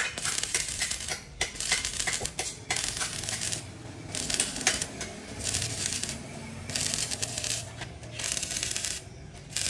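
Stick (arc) welding electrode crackling and sizzling against steel in repeated short bursts, the arc struck and broken again and again, each burst lasting about a second.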